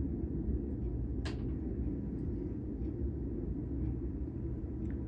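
Steady low rumble of a long freight train rolling past in the distance.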